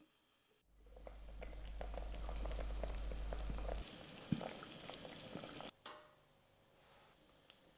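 Broth with soy chunks and carrots simmering in a stainless steel pot over a low gas flame: a steady bubbling of many small pops, with a low hum under it for the first few seconds. It cuts off suddenly about six seconds in, leaving a quiet room with a few faint ticks.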